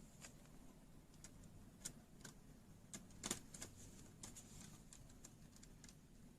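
Faint, scattered small clicks and taps, with one louder click about three seconds in: small laptop parts and screws being handled on a work surface.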